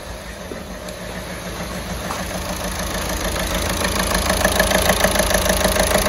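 Volkswagen Golf 6's 1.6 TDI common-rail diesel engine idling roughly with a rhythmic knocking clatter, getting louder through the second half. The mechanic suspects a faulty injector.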